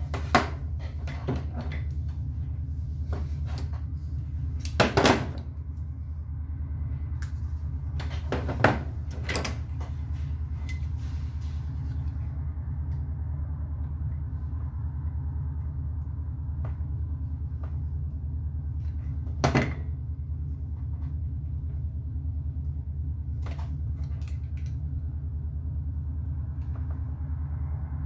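Small parts and tools being handled on a wooden workbench: a few scattered knocks and clicks, the loudest about five, nine and twenty seconds in, over a steady low hum.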